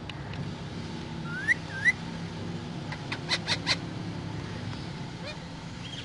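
Pet parakeets calling: two short rising whistles about a second and a half in, then a quick run of four or five sharp chirps in the middle.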